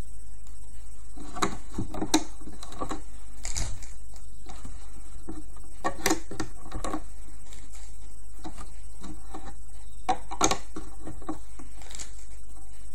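Scattered light clicks and taps of rubber loom bands being stretched and snapped over the plastic pegs of a loom, over a steady low hum.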